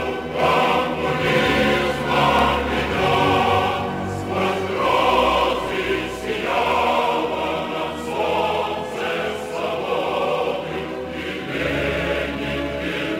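Choral music: a choir singing long, sustained phrases.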